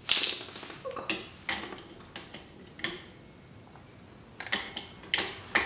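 Metal clinking and knocking from hand tools and bike parts being handled: scattered sharp clinks, a quieter gap about three to four seconds in, then several clinks close together near the end.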